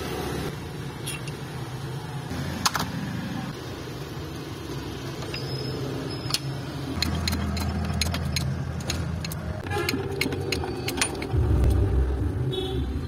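Sharp metallic clinks and taps as a motorcycle crankshaft and its ball bearing are handled and seated in a steel bearing-puller jig, over a steady low hum, with a louder low rumble near the end.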